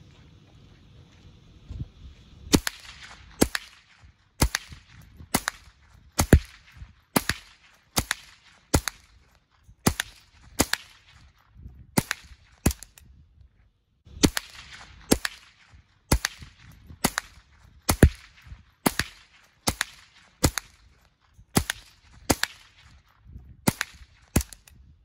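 GSG AK-47 semi-automatic .22 rimfire rifle firing CCI Mini Mag rounds, about two dozen sharp cracks at a steady pace of roughly one a second. The rifle starts firing a couple of seconds in and pauses briefly just before halfway.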